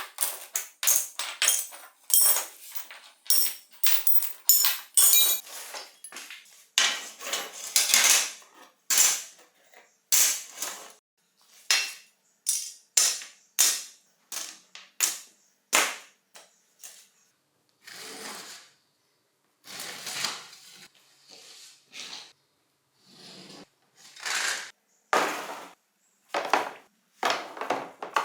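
Disassembled mountain-bike parts being set down one by one on a hard surface: a long, irregular series of clinks, clacks and knocks. Some small metal pieces ring briefly, mostly early on.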